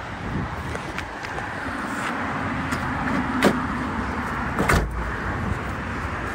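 Outdoor lot ambience with a steady rush of noise. About three and a half seconds in there is a sharp click, and just before five seconds there is a second click with a low thump.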